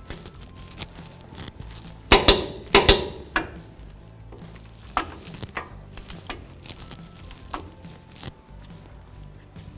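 Torque wrench with a 21 mm socket tightening the F-150's caliper bracket-to-knuckle bolts to 184 foot-pounds. Two loud bursts of sharp metallic clicks come about two and three seconds in, followed by a few lighter clinks of the tool and socket.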